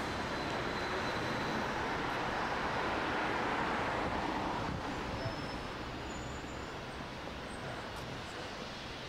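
A bus drives past close by on the road, its engine and tyre noise strong for the first few seconds, then fading about halfway through into a lower hum of street traffic.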